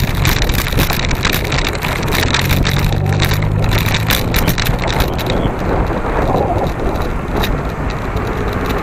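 A car driving slowly over loose gravel: steady road noise with many small clicks and knocks from stones under the tyres, over a low engine hum. About five seconds in, the noise softens and the clicks thin out as the tyres reach a smoother surface.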